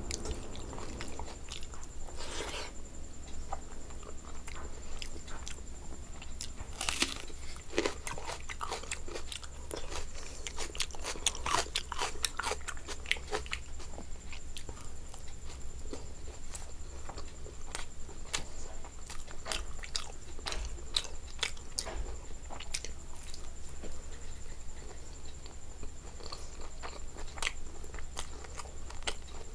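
A person eating close to the microphone: chewing, biting and crunching food with many sharp, wet mouth clicks, over a faint steady high whine.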